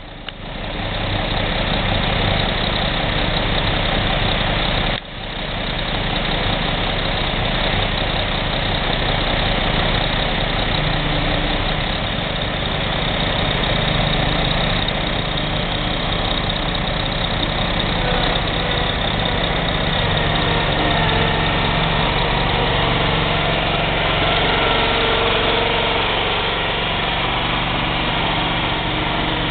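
Engines of a ready-mix concrete mixer truck and a motorized concrete buggy running steadily while the buggy is loaded from the truck's chute and then driven off, with a brief break about five seconds in.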